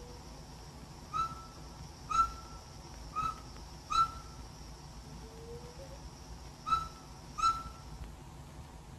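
Short, sharp bird-like whistled calls: four about a second apart, then after a pause two more, over a faint steady high hiss.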